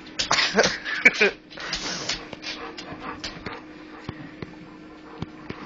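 Chihuahua chewing on a bone, with a few short whimpers in the first two seconds, then scattered sharp clicks of teeth on the bone.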